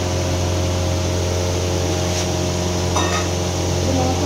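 Steady hum and hiss of running kitchen machinery, with a low drone under an even rush of noise.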